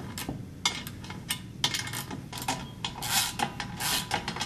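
Half-inch wrench tightening a nut on a carriage bolt of a steel satellite-dish mount: a series of irregular rasping strokes mixed with light metal clinks.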